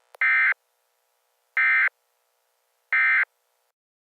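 Emergency Alert System end-of-message data bursts: three short, identical warbling digital tone bursts about a second and a half apart, sent to mark the end of the alert.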